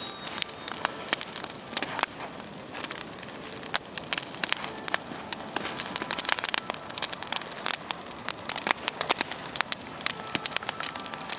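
Wood campfire crackling, with frequent irregular sharp pops over a steady hiss.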